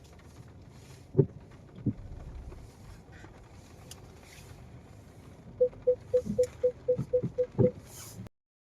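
Car interior on a rainy drive: a steady low road rumble with a few dull thumps. Near the end comes a quick run of about eight short electronic beeps, roughly four a second, among more thumps, and then the sound cuts off suddenly.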